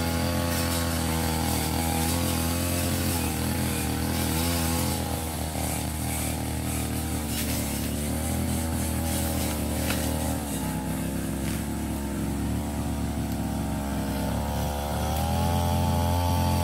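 Ogawa 33 cc brush cutter engine running at high speed with a metal blade, loaded by thick overgrown lemongrass. Its pitch wavers with the load, drops for a few seconds past the middle, then climbs again near the end.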